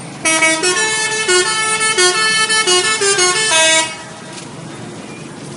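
A bus's telolet musical air horn plays a quick tune of several notes sounding together and stepping in pitch, lasting about three and a half seconds. It then stops, leaving steady background noise.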